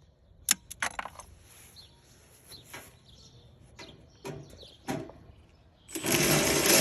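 A string of separate sharp clicks and light knocks, then a loud, even rushing noise that starts suddenly about six seconds in.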